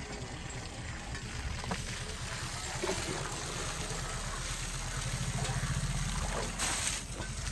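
Water running from a garden hose and splashing onto the grass at the tip of a drinking elephant's trunk, over a steady pulsing low rumble. A short, louder hiss comes near the end.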